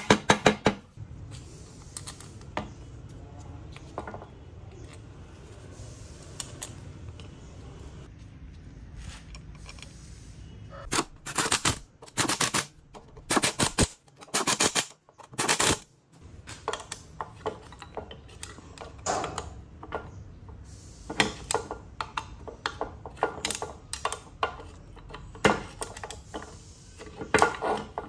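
Hand tools clicking and tapping on the metal crankcase halves of a Stihl chainsaw while it is being put together and screwed up. The sound comes as irregular sharp taps, bunched into quick runs in the middle and near the end.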